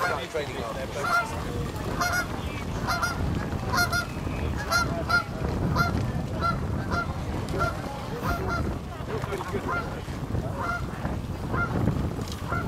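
A series of short honking calls, about two a second, each with a quick downward bend in pitch, over a steady low rumble.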